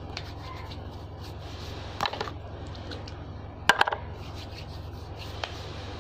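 Hands handling slime, rubbing and squishing, with two short clusters of sharp clicks about 2 s and 3.7 s in and one more click near the end, over a steady low hum.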